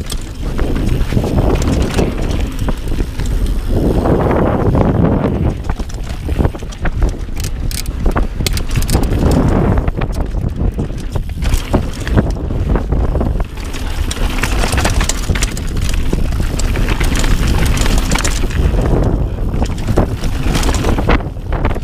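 Wind rushing over the camera microphone over the rumble of a Mondraker Foxy R mountain bike's tyres on a dry dirt trail at speed, with frequent clicks and knocks as the bike rattles over bumps.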